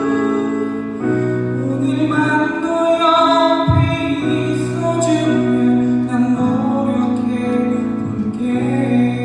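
A live pop ballad: keyboard and electric guitar accompany a male singer who sings into a microphone.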